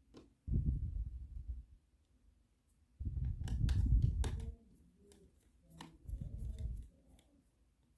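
Hands handling small parts inside an open laptop while fitting and screwing down an SSD: small sharp clicks over three stretches of low rustling and bumping.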